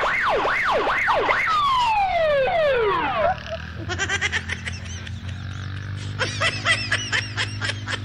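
Police-style electronic siren sounding loud, first in fast up-and-down yelps, then in long falling wails, and cutting off about three seconds in. A quieter rapid string of clicks and short chirps follows over a low steady hum.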